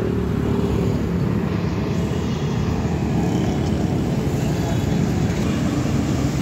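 An engine running steadily: a continuous low hum.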